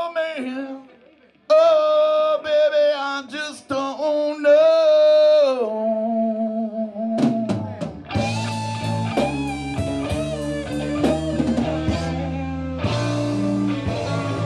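Live blues-rock band. For the first several seconds a lone electric guitar plays a sparse line of bent and sliding notes, with a short break about a second in; then about seven to eight seconds in, bass and drums come in and the full band plays on.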